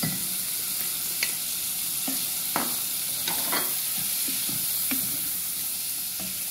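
Shrimp sizzling in hot olive oil and garlic in a pot while they are stirred with a wooden spoon, with a few short clicks of the spoon against the pot.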